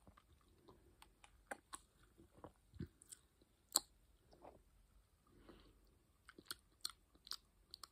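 Faint, scattered mouth clicks and lip smacks as a sip of fizzy soda is tasted, with a few soft low thuds; the loudest click comes about four seconds in.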